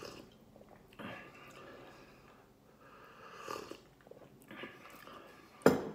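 Slurping sips of hot chocolate from a glass mug, soft and breathy, with one short sharp loud sound near the end.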